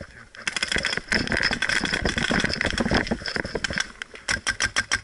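Paintball marker firing rapidly: a dense rattle of shots for about three seconds, then a quick string of separate pops, about seven a second, near the end.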